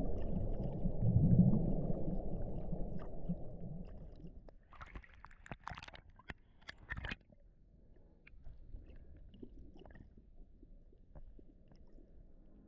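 Underwater water noise: a low rumbling wash for about four seconds that fades away, then a few brief sharp splashy bursts around the middle, followed by faint scattered crackling.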